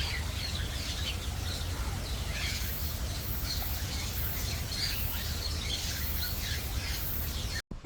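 Many birds chirping and twittering at once, with short overlapping calls, over a steady low background noise. The sound cuts off suddenly near the end.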